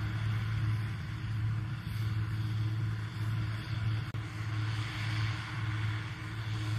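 Fiat 160-90 Turbo DT tractor's six-cylinder turbo diesel engine running steadily under load while ploughing: a steady low drone, with a brief dropout just after four seconds in.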